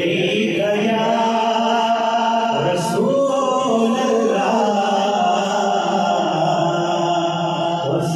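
A man singing a naat, an Urdu devotional song in praise of the Prophet, solo into a microphone, drawing out long notes that waver and slide between pitches.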